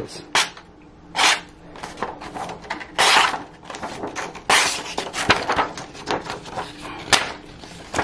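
Pro-Tech Sprint knife blade slicing through a sheet of paper, heard as several short papery swishes and rustles as the sheet is cut and handled. It is a paper-cutting sharpness test of the out-of-the-box edge, which the owner finds could be sharper.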